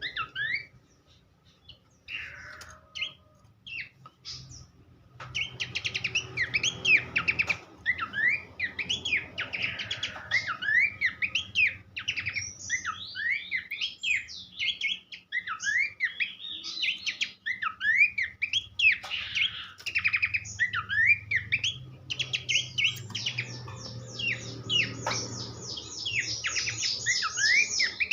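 Pelanduk semak (Horsfield's babbler) singing: a few scattered calls, then after about five seconds a dense, unbroken stream of quick varied chirps and whistles, ending in a rapid high trill near the end.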